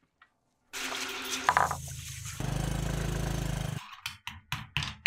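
Water sloshing as hands stir in a ceramic bowl, then a low steady rumble for over a second, then a quick run of five or so sharp knocks from a pestle in a stone mortar near the end.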